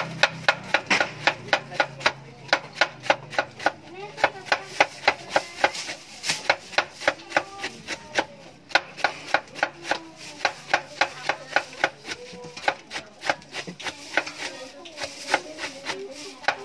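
Kitchen knife shredding a head of cabbage on a wooden cutting board: quick, even chopping strokes, about three a second.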